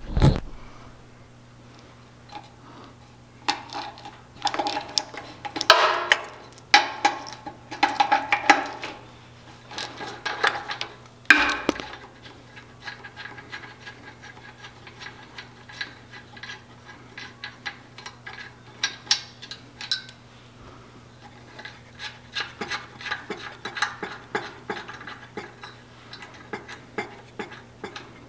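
Metal hand tools and small metal parts clicking and clinking in irregular bursts as they are handled and worked, with a faint steady low hum underneath.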